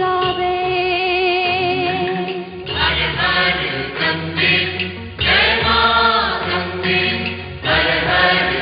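Hindi devotional song: singing voices hold long, wavering notes over a steady musical accompaniment, with fuller swells about three seconds in, again near the middle and near the end.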